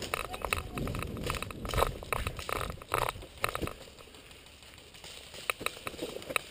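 Footsteps crunching over debris, with gear and clothing rustling: an irregular run of sharp clicks and crackles over a low rumble for about four seconds, then quieter, with a few more clicks near the end.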